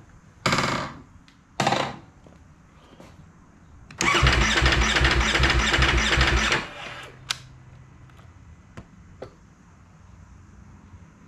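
Ducati Panigale V4 S starter cranking the V4 engine: two brief presses, then about two and a half seconds of cranking with an even pulse. The engine does not catch: the bike's cold hard-start fault.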